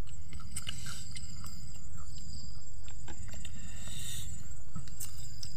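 People eating with their hands: scattered small clicks and smacks of food handling and chewing over a steady low rumble, with a faint high insect-like chirp.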